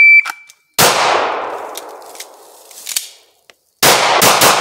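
Shot timer's short, high start beep, then a single handgun shot a little under a second in with a long echoing tail. After a pause of about three seconds comes a fast string of handgun shots near the end.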